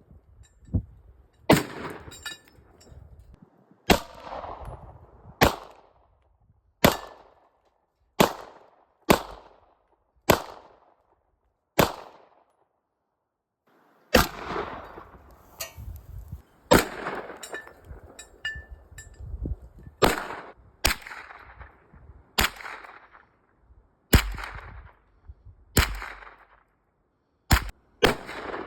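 Firearm fired in single shots, about twenty in a row, roughly one every one to two seconds, each with a short echoing tail. There is a pause of about two seconds partway through.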